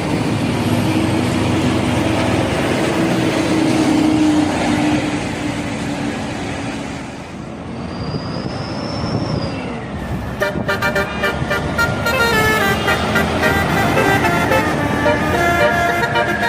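Bus engine and traffic noise with a steady low tone, then, from about two-thirds of the way in, a bus telolet horn playing a tune of several stepping tones.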